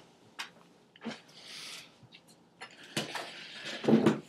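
Movement noises as a person gets up and steps in front of the camera: a few light knocks, clothing rustling, and a louder thump near the end.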